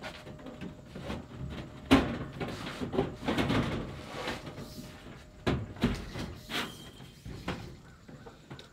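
Hand work on a building site: irregular knocks and clunks of materials and tools being handled, with a sharp bang about two seconds in, a stretch of scraping just after, and two more thuds later on.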